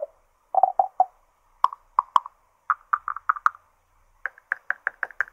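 Short pitched plops from a breadboarded ETI vocoder's band-pass filters, played through an active speaker, as a fingertip on +12 V touches each filter's input resistor. Each filter rings at its own tuned frequency, a microphonic sound. The plops come in four quick groups, each group higher in pitch than the one before.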